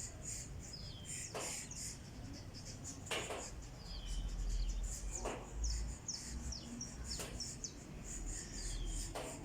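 Birds chirping in short high notes, some dropping in pitch, over a low rumble. A brief noisy scrape or knock comes about every second or two.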